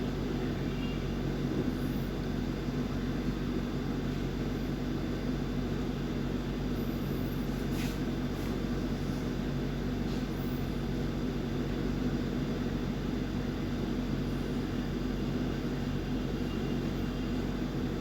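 Steady low droning hum with no let-up, and a single faint click about eight seconds in.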